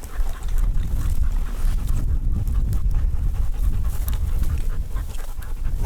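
A dog panting close by, over low rumbling noise on the microphone.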